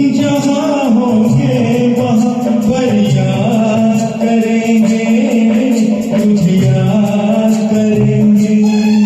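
Karaoke backing track of a Hindi film song playing, with a wavering melody line over a steady bass.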